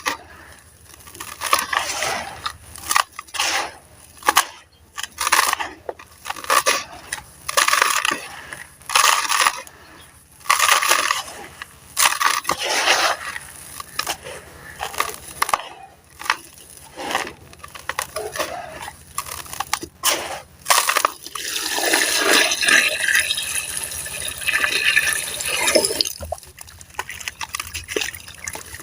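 Sand-cement slab pieces crumbled and crushed in a tub, a string of separate gritty crunches about once a second, then a longer stretch of continuous crumbling about three quarters of the way through.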